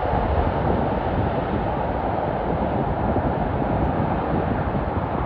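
Jet airliner engine noise: a steady, loud rush with a deep rumble underneath.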